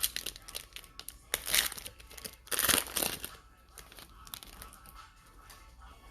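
Foil wrapper of a trading card pack crinkling and tearing as it is opened by hand, with two loud crackling bursts about a second and a half and nearly three seconds in, between lighter rustling of the wrapper and cards.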